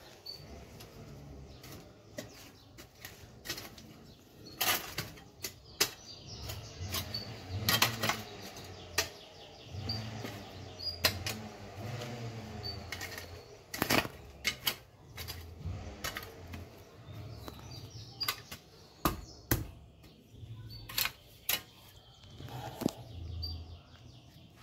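Small metal hand hoe chopping and scraping loose soil while filling in around a newly planted seedling: irregular sharp knocks and scrapes with dull thumps.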